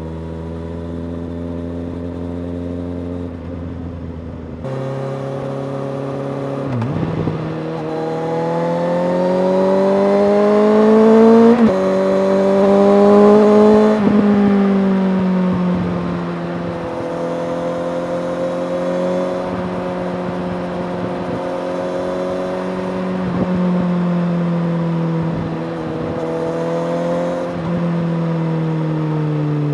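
Suzuki GSX-S750's inline-four engine through a Yoshimura R-77J exhaust under way. After steady running, the revs climb, drop sharply at a gear change, climb again, then ease off and hold nearly steady with small rises and falls.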